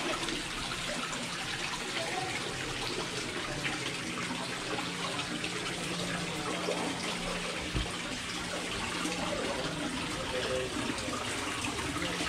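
Water from a small artificial rock waterfall splashing steadily into an ornamental pond, with a faint steady low hum underneath.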